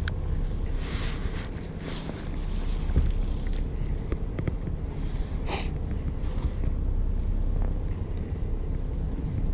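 Steady low rumble of a charter fishing boat's engine running, mixed with wind on the microphone. A few short hissing bursts cut in over it, the clearest about five and a half seconds in.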